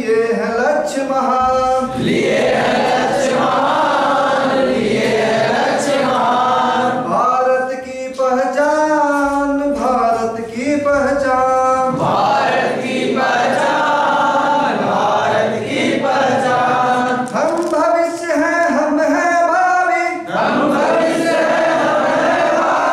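A group of men singing a Hindi song unaccompanied, call and response: one man sings a line alone and the group answers it together, several times over.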